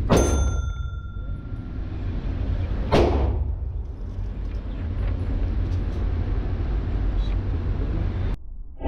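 Two .45 ACP 1911 pistol shots, one right at the start and another about three seconds in, each with a short echo off the walls of an indoor range. A steady low rumble runs under them.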